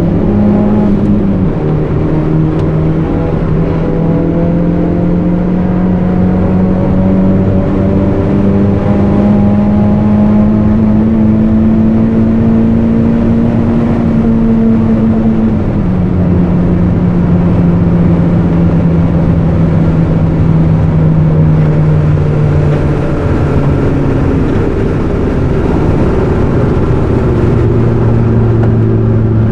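Turbocharged CA18DET 1.8-litre four-cylinder of a 1991 Nissan 200SX S13 with a 3-inch exhaust, loud under load as the car is driven hard. The engine note climbs slowly through long pulls, steps sharply down and up a few times, and settles on a lower note near the end.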